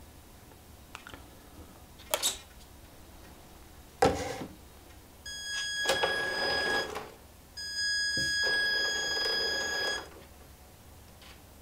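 A steady, high electronic tone from the RC truck, twice: about a second and a half, then after a short gap about two and a half seconds, each with a buzzing noise underneath. Before it come a few sharp clicks.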